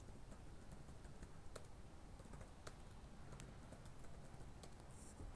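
Faint, irregular keystrokes on a computer keyboard as a login password and short commands are typed at a terminal, with several presses of Enter.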